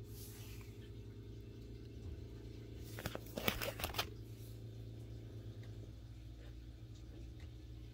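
Plastic sleeve pages of trading cards being handled: a faint swish at the start and a brief crinkling rustle of clicks about three seconds in, over a steady low hum.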